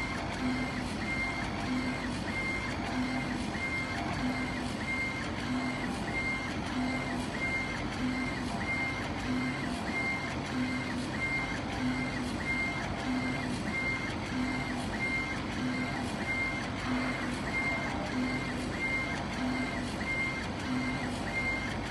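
CO2 laser engraver raster-engraving stone: the laser head's drive motors whine in short repeating passes, about one and a half a second, each broken off as the head reverses. A steady hiss runs underneath.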